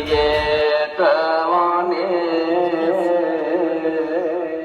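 Background music: a voice singing a gliding, ornamented melody over a steady drone, in the style of South Indian classical music.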